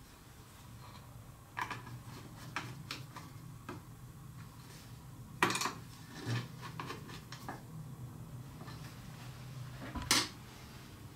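Metal jig parts and small hardware being handled and set down: scattered light clicks and clinks, with two louder knocks about five and a half seconds and ten seconds in.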